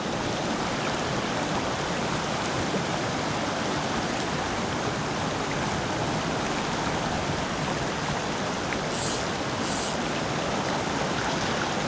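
Creek water running steadily over rocks, a constant rushing wash, with two brief high hisses about nine and ten seconds in.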